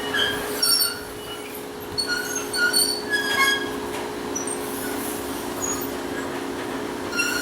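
Old sawmill machinery running with a steady mechanical hum, with scattered short, high metallic squeaks and clinks over it.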